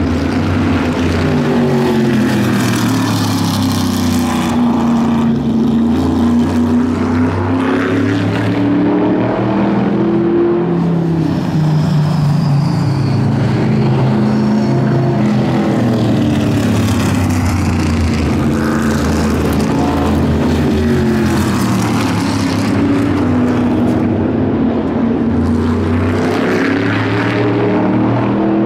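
Vintage modified race cars running practice laps on a short oval. Their engine notes rise and fall in repeated sweeps as they come around and pass, several overlapping at once.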